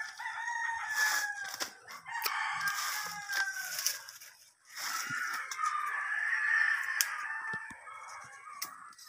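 Rooster crowing twice in long drawn-out crows, the second beginning about five seconds in, with a few faint clicks.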